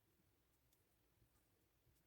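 Near silence: faint room tone with a few very faint ticks.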